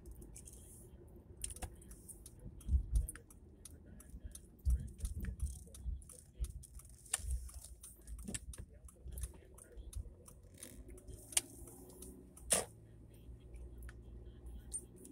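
Car cabin sound while driving: a low rumble of the moving car with many irregular light clicks and rattles, one sharper click near the end.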